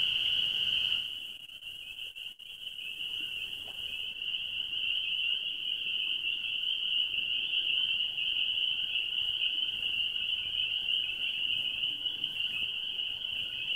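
A dense chorus of spring peepers, so many frogs calling at once that their high peeps merge into one steady, shrill ring, really loud.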